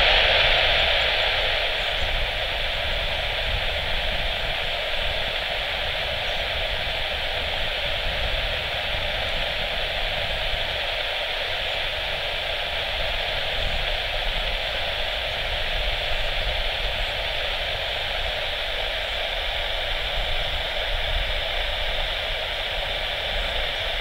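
Steady hiss of static from an air-band radio receiver between tower transmissions, a little louder in the first couple of seconds, with a faint low rumble underneath.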